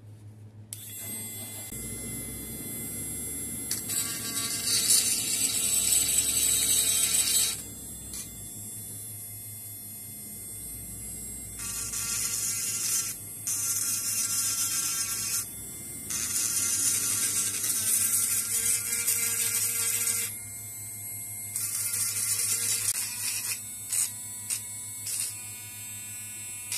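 KOMAX 12V mini rotary tool running with a steady high whine, its pink grinding stone pressed against a 3D-printed plastic figure in several spells of a few seconds each, each adding a loud harsh grinding hiss as it smooths away the print's layer lines. Near the end the contacts become shorter and choppier.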